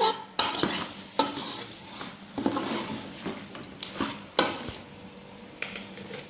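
A metal spoon stirring pieces of chicken and thick ground masala paste in a metal pot, with irregular scrapes and knocks against the pot, over a light sizzle of frying. The strokes thin out after about five seconds.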